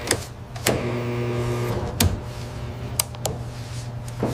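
Desktop banknote-scanning machine running: a steady motor hum with a brief whirring whine about a second in, and several sharp mechanical clicks spread through.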